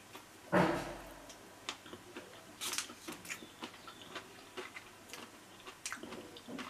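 A person eating a sweet: a short breathy sound about half a second in, then scattered small clicks of chewing and mouth sounds.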